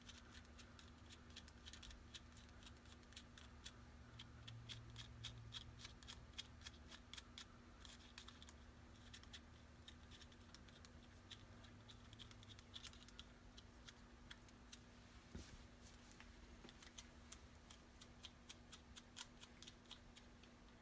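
Faint, irregular clicking and scraping of small screws being tightened down by hand with a hex key on a gimbal's GoPro clamp, over a steady low hum.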